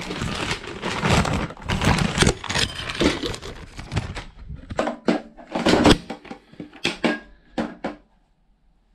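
Plastic packaging bag rustling and crinkling as a new plastic toilet siphon is pulled out of it, followed by a run of separate sharp plastic clicks and knocks as the siphon is handled.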